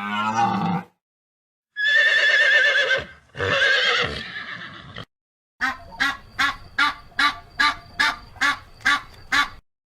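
A horse neighing twice, each a long whinny of about a second and a half with a wavering pitch. This is followed by a run of about ten short, evenly spaced calls, roughly two and a half a second.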